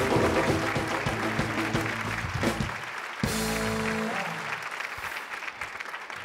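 Live studio band playing the guest's entrance music over studio-audience applause. The band stops about three seconds in with a short held chord, and the applause carries on a little longer and fades out near the end.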